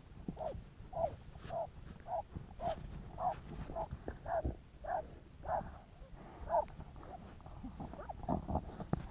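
Jagdterrier barking steadily into a burrow, about two barks a second, with a short pause late on before a quick run of barks: the terrier baying at a fox underground.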